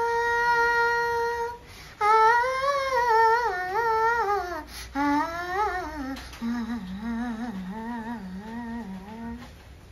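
A young girl humming a wordless melody, unaccompanied: the humming prelude of a Malayalam film song. A long held note comes first, then a winding phrase that steps down in pitch and ends in a lower, wavering line shortly before the end.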